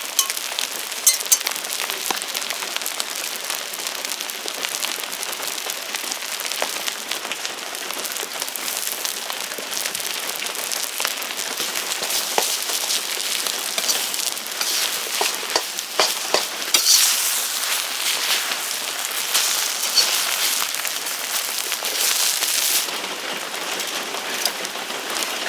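Deer-meat fried rice sizzling in a hot pan as it is stir-fried, a steady hiss with occasional clicks of a utensil against the pan; the sizzle grows louder after about the middle.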